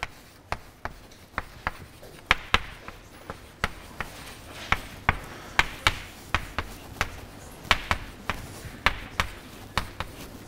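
Chalk tapping on a blackboard as words are written out: a long run of sharp, irregular taps, about two or three a second.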